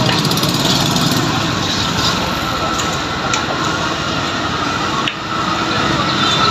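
Steady, loud mechanical running noise of a motor vehicle close by, with a few light clicks and a brief drop about five seconds in.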